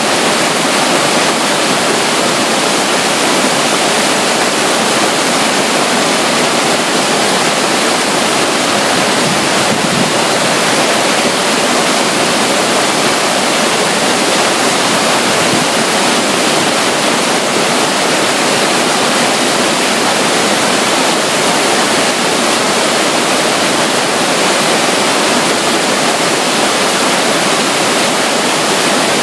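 Steady, loud rush of flowing water from a small stream of water running beside a waterfall, even and unbroken throughout.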